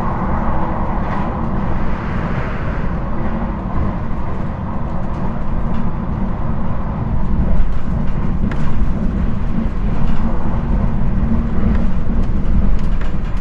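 Running noise of a regional passenger train heard from inside the carriage: a steady low rumble of wheels on rails, with a few sharp clicks.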